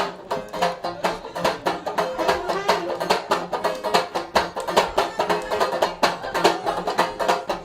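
Live band music: a song played at a fast, steady beat, with sharp rhythmic strokes over sustained pitched notes.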